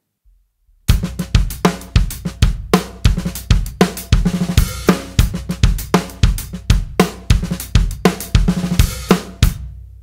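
Drum kit playing a 7/4 odd-meter groove: hi-hat, kick drum and loud snare hits with ghost notes, starting about a second in. Near the end the playing stops and the ringing fades out.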